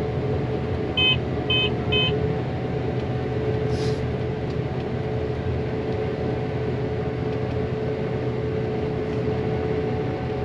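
Combine harvester running with a steady mechanical drone. Three short electronic beeps sound about a second in.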